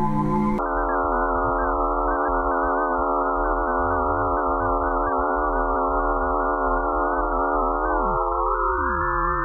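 Eerie electronic drone of many layered sine-like tones, some steady and some wavering, which takes over abruptly from a different tone texture about half a second in. Near the end several tones glide upward while the lowest ones slide down. It is presented as sonified magnetic-field and radio-wave signals from Pluto.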